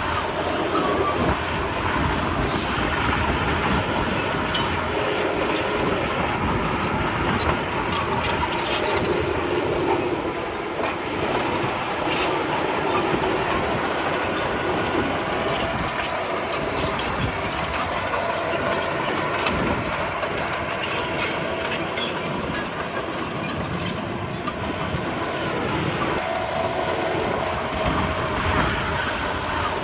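Komatsu D31P crawler bulldozer running and travelling, with a steady engine drone and scattered clanks and squeals from its steel tracks.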